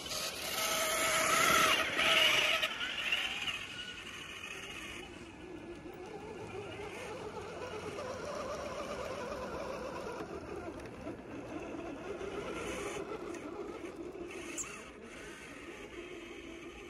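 Electric motors and gear drives of scale RC crawler trucks whining as they crawl through deep snow. Loudest in the first three seconds, then a steadier, lower whine.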